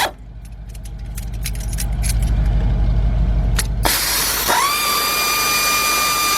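A low rumble with scattered small clicks, then about four seconds in a pneumatic air ratchet starts with a rush of air and spins up to a steady high whine, running freely as it backs out a 13 mm brake caliper bolt.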